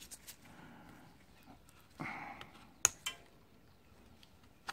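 Quiet handling with a short hiss, then two sharp metallic clicks a fraction of a second apart, from a steel pick prising at the connector strip on a pack of lithium-ion cells.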